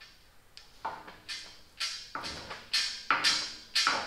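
A quick, irregular run of sharp metal knocks and clanks, about two a second, each with a short ringing tail, from the engine and transmission swinging on a gantry hoist chain as they are shifted by hand.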